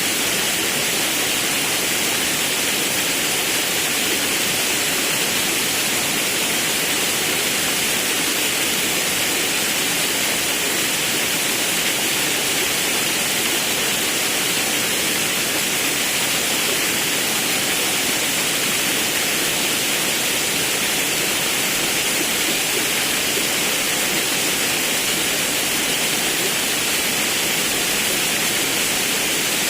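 Forest river with a waterfall: steady, loud rushing of water.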